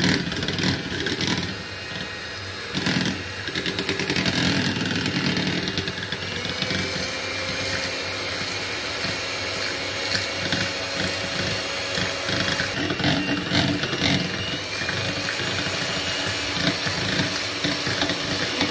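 Electric hand mixer running steadily, its beaters whipping chilled custard and thick cream in a bowl, with a brief dip in level about two seconds in.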